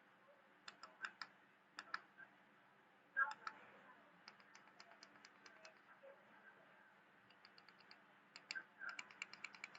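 Faint, sharp clicks in several short runs over a quiet room, some evenly spaced at about five or six a second, others in uneven groups of three or four.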